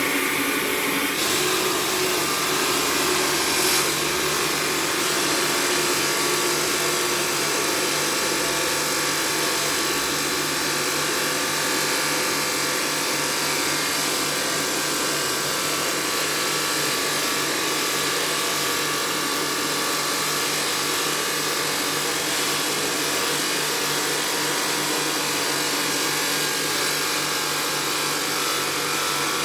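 Stone-working power machinery running steadily on marble: a continuous noisy grind over a constant low hum.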